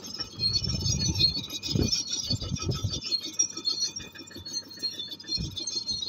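Komatsu crawler bulldozer's steel tracks clinking and squeaking continuously as it drives away over rough ground, with wind buffeting the microphone in irregular low gusts.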